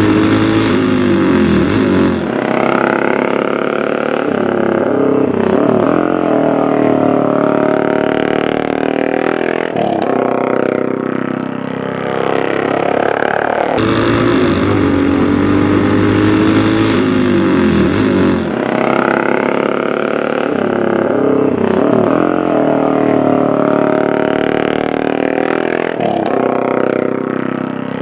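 Several racing motorcycle engines revving hard and passing by, their pitch sweeping up and down as they go past. The same stretch of engine sound repeats about every sixteen seconds, as a looped soundtrack would.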